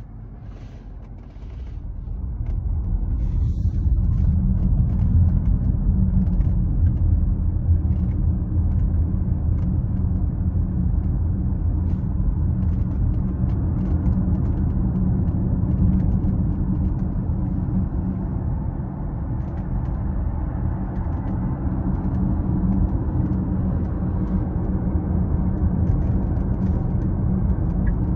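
Tyre and road rumble inside the cabin of a 2022 Tesla Model X as it pulls away, swelling over the first few seconds and then holding steady, with no engine note. Faint, short squeaks from the interior come and go over the rumble: the squeak the owner complains of in this car.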